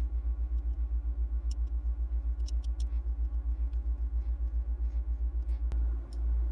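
Metal lathe running, a low steady throb that pulses about nine times a second, with a few faint ticks over it.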